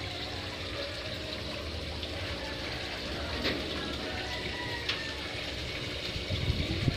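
Steady bubbling of an aquarium sponge filter, air bubbles rising and breaking at the water surface, with a couple of light clicks in the middle and a few low thumps near the end.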